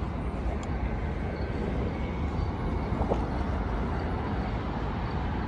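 Steady road-traffic noise from a multi-lane road: a continuous low rumble of passing cars.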